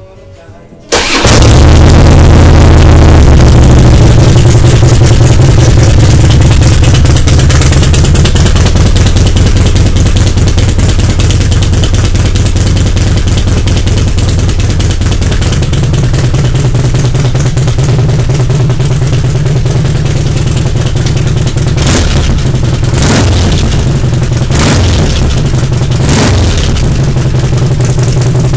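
2006 Harley-Davidson touring bike's V-twin starting about a second in, then idling steadily through a Fullsac true-duals exhaust with Rush slip-on mufflers. The idle is even, with no up-and-down roll, now that the crossover pipe is gone. A few short throttle blips come near the end.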